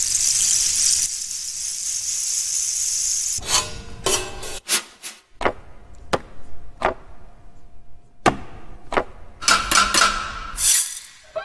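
A steady hiss for about three seconds, then a string of sharp knocks and clanks in a loose rhythm, some of them ringing briefly.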